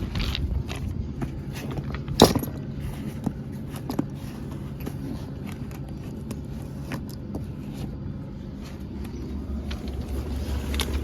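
Newly installed heat pump running steadily in heating mode, a low hum, with a sharp knock about two seconds in and scattered lighter clicks of tools and gauges being handled.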